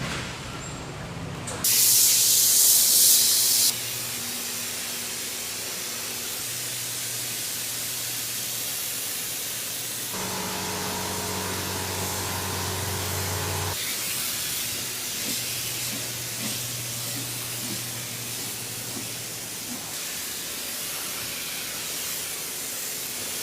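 A steady hiss, with a much louder, high hiss lasting about two seconds near the start and a low hum joining in for a few seconds around the middle.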